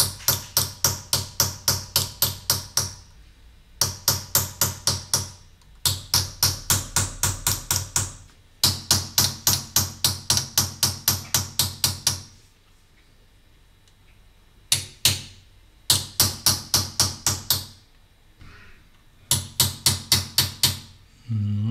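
Chasing hammer tapping a small tracer punch on a silver plate set in pitch, tracing the outline of the design. The strikes come in quick, even runs of about five a second, broken by short pauses, with a quiet stretch of about two seconds past the middle.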